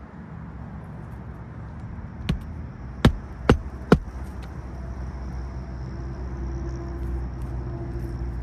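Hammer striking roofing nails into an asphalt shingle: four sharp blows in about two seconds, the last three close together. Over the second half a low steady engine hum comes in and grows slightly louder.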